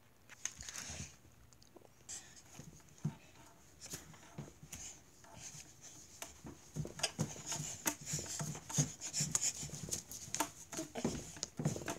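Faint rustling, soft knocks and breathing from a person moving about close to the microphone, busier in the second half.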